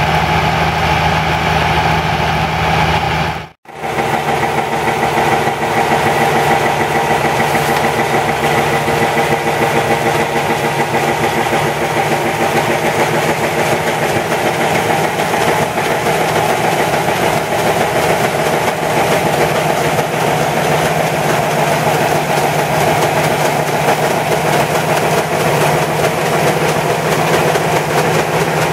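A tractor engine and the grain auger it drives are running steadily, with wheat pouring from a truck into the auger hopper. The sound cuts out sharply for a moment about three and a half seconds in, then the same steady running carries on.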